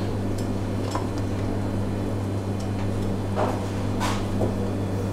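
A steady low machine hum, with a few faint soft touches and rustles as sticks of lemongrass are laid onto fish fillets in a stainless steel pan.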